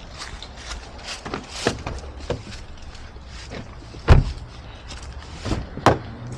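A series of knocks and thumps, the loudest about four seconds in and another just before six seconds, over a low steady rumble.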